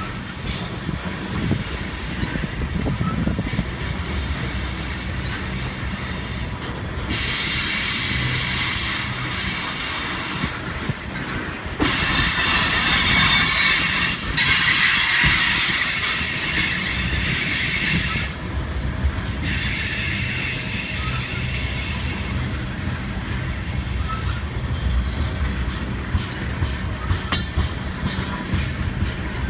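Railroad tank cars rolling past close by: a steady rumble of steel wheels on rail, with high-pitched wheel squeal from about seven to eighteen seconds in, loudest a little before the middle, and some clicking over the rail joints near the end.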